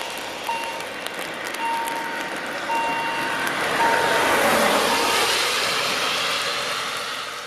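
Level-crossing warning signal beeping a single high tone about once a second as the barriers swing down to close the crossing; the beeping stops about five seconds in, once they are down. A broad rushing noise swells under it and is loudest just after the middle.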